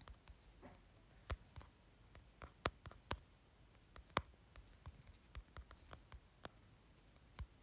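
Faint, irregular light clicks and taps from handling the smartphone that is streaming, about fifteen of them over a quiet room hiss. The sharpest come about two and a half and four seconds in.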